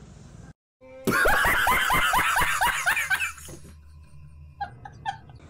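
A man laughing hard in a rapid string of about ten loud bursts over two seconds, each burst falling in pitch. It starts after a brief cut to silence and breaks off about three and a half seconds in.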